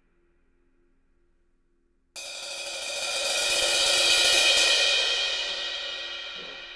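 Zildjian K Constantinople 20-inch Thin High ride cymbal struck with a drumstick about two seconds in. Its shimmering wash swells to a peak about two seconds later, then slowly dies away.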